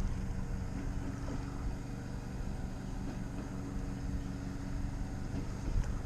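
A low steady hum with some wind rumble on the microphone.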